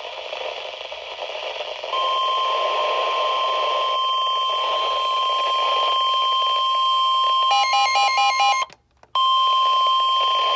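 Weather radio emergency alert tone: after about two seconds of radio hiss, a loud, steady single-pitch beep sounds, the alarm that opens a new severe thunderstorm warning broadcast. Shortly before the end a quick warbling chirp pattern overlaps it, then the tone cuts out for about half a second and resumes.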